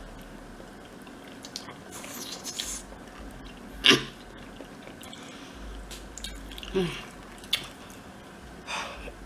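Close-miked chewing of a boiled potato, with scattered small clicks of mouth and utensils and two short vocal sounds, the louder one about four seconds in and another near seven seconds.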